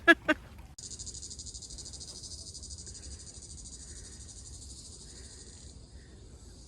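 Insects trilling outdoors: a high, rapid, pulsing buzz that cuts in suddenly about a second in and thins near the end.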